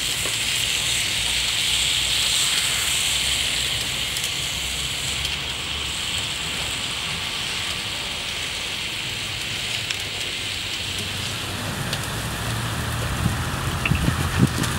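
Seasoned beef sizzling on a fire-heated stone slab: a steady hiss, with a few sharp crackles near the end.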